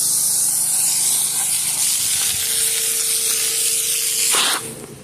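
Pressure washer spraying a steady hissing jet of water, with the machine's motor humming underneath; the spray cuts off sharply about four and a half seconds in, leaving only the low hum.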